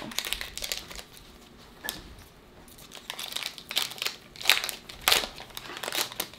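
Wrapper of a 2020 Bowman 1st Edition baseball card pack being torn open and crinkled by hand. It comes in scattered crackly bursts: a flurry at the start, a lull, then the busiest crinkling in the second half.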